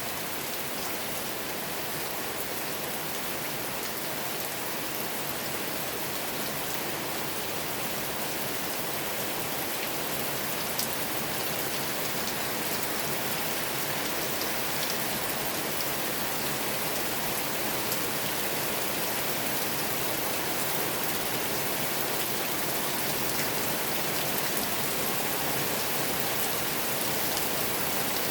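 Steady rain falling, a dense even hiss with faint scattered drop ticks.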